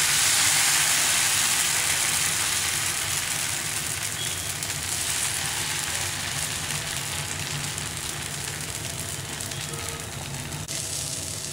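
Thin rice-flour batter sizzling on a hot, oiled non-stick tawa as it is poured from a ladle. A steady hiss that is loudest at first and slowly dies down.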